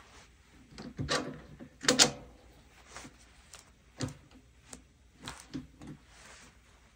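Irregular metal clicks and knocks from a milling machine's drill chuck holding a tap, gripped and turned by hand to start a tapped hole, the two loudest about one and two seconds in.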